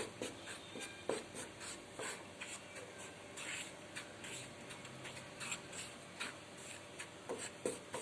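A spatula scraping and stirring wheat flour as it is lightly fried in a kadai, with soft, irregular rasping strokes.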